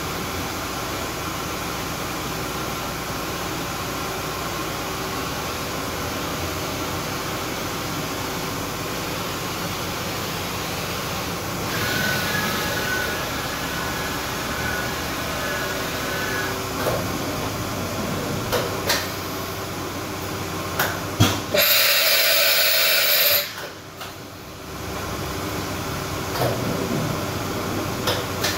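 Smart 1565 CNC vertical machining center running with a steady mechanical hum. About twelve seconds in, a whine rises for a few seconds while the table traverses, followed by a few clicks. About 22 seconds in, a loud hiss lasts about a second and a half and then cuts off.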